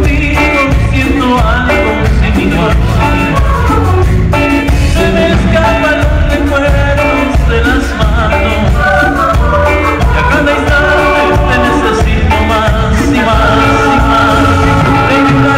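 Live band playing a Latin dance song on electric guitar, electric bass, drum kit and congas, with keyboard. It is loud and steady, and the band settles into a held chord near the end.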